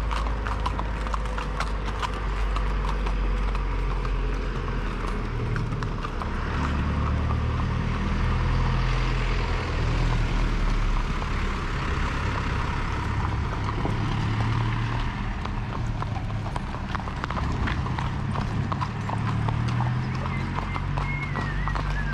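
Hooves of several horses clip-clopping on a paved street at a walk, many overlapping strikes throughout, over a steady low rumble.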